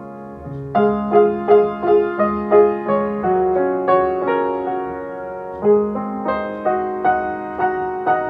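Piano playing a slow, gentle melody: single notes struck one after another over a sustained low note, with a brief lull about halfway through before the notes resume.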